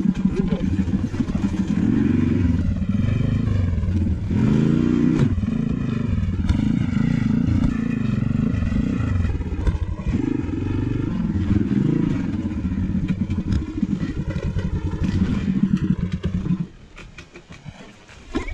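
A small single-cylinder four-stroke engine runs with its pitch rising and falling as it is revved up and down. It cuts out suddenly about two seconds before the end, leaving only a quiet background.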